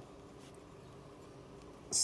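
Quiet pause: faint steady room tone with no distinct sound.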